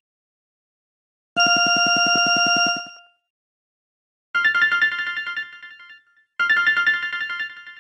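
LG AX145 cell phone ringtones: one burst of a rapidly pulsing, steady-pitched ring tone about a second and a half long, then after a pause a different ringtone, a short melody of quick notes played twice.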